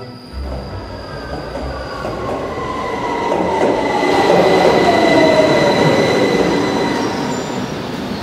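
Train passing close by: a rumble of wheels on rails that swells to its loudest around the middle and then eases off, with a whine that slowly falls in pitch and steady high-pitched tones above it.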